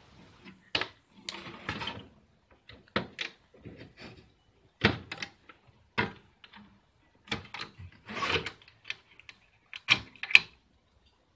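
Irregular knocks, clicks and rattles of hands working inside an opened CRT television, handling its wiring, plastic chassis and circuit board, with the sharpest knocks near the end.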